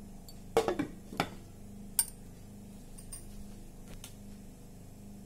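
Glass lid set onto a metal cooking pot: a few sharp clinks of glass on metal within the first two seconds, over a steady low hum.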